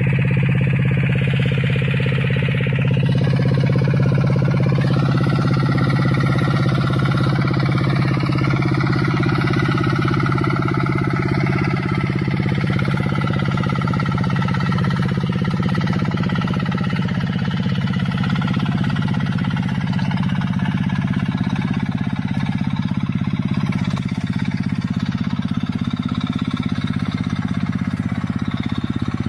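Engine of a remote-controlled crawler tractor running at a steady, unchanging speed as it pulls a rotary tiller through dry soil.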